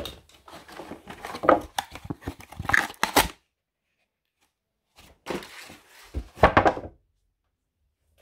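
Cardboard packaging being handled and torn open: rustling and tearing with light knocks, in two bouts with a pause of about a second and a half between them.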